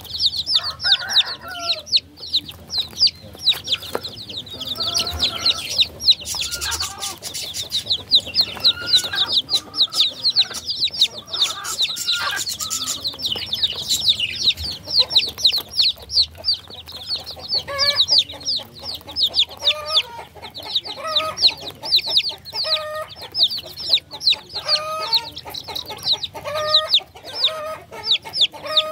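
A brood of baby chicks peeping nonstop, a dense stream of short, high chirps that fall quickly in pitch. Lower, repeated calls mix in from about two-thirds of the way through.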